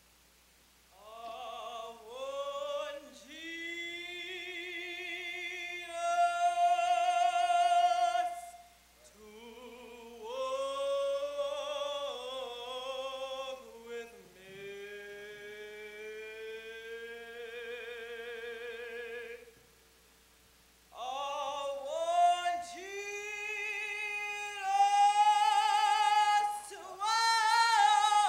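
A woman singing unaccompanied in an operatic style, with strong vibrato, in long held phrases. She pauses briefly about nine seconds in and again about twenty seconds in.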